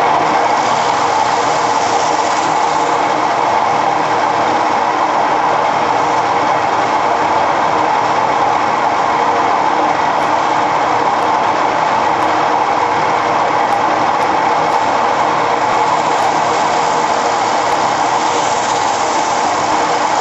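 Wood lathe running steadily while coarse belt sandpaper is held by hand against the inside of a spinning manzanita bowl, a loud, even sanding rush over the motor.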